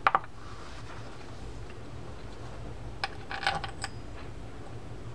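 Light workbench handling sounds during reel reassembly: two sharp clicks at the start, then a brief burst of rustling and small clicks about three seconds in as a paper towel and small parts in a plastic tray are handled, over a low steady hum.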